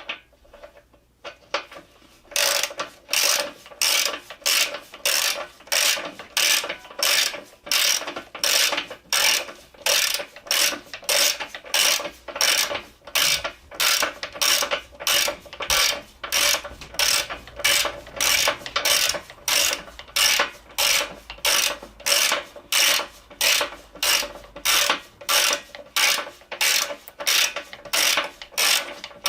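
Ratchet wrench turning out the front axle bolt of a Yamaha V-Star 1300, its pawl clicking in a steady rhythm of about one and a half to two strokes a second. The strokes begin about two seconds in and keep going.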